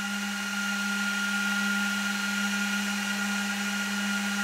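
Cooling fans of a Juniper SRX240 router running steadily as the router boots: a constant hum with a fainter steady whine above it.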